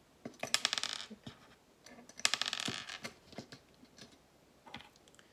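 Plastic LEGO pieces clicking and clattering as small builds are handled and set down on a tabletop: two busy bursts of rattling, then a few stray clicks.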